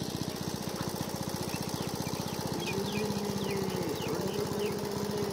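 Small engine running steadily with a fast, even thudding. Midway come two long calls that rise and fall, and a few short high chirps.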